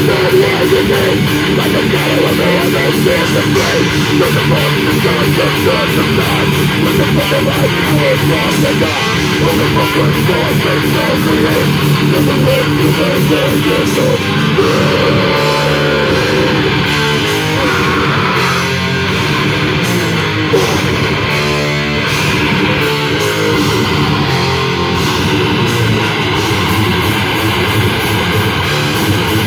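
Live heavy metal band playing loudly, with electric guitars and a drum kit.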